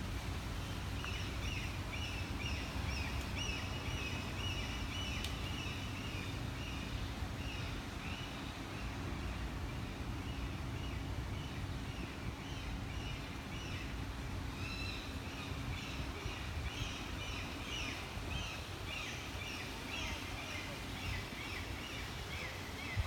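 Outdoor city ambience: small birds chirping in rows of short, quick, high notes over a steady low hum of distant traffic. A faint low drone in the hum stops about two-thirds of the way through.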